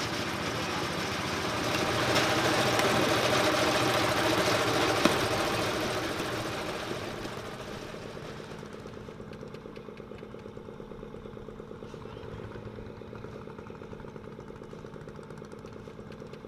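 Engine-driven ice crusher running, loud with a coarse grinding noise for the first several seconds and a sharp knock about five seconds in. It then settles to a steady, even engine hum.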